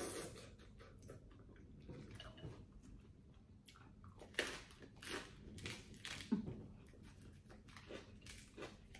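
A person eating a bowl of pho close to the microphone: irregular chewing and biting mouth sounds, louder and more frequent around the middle.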